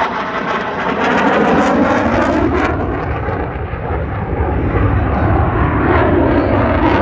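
Loud jet noise from the T-50 Golden Eagle's single turbofan engine as the aircraft passes, with a sweeping whoosh that bends in pitch. It eases a little about three and a half seconds in and builds again toward the end.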